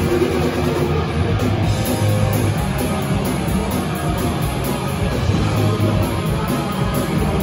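Live rock band playing, with electric guitars and a drum kit, continuous and dense.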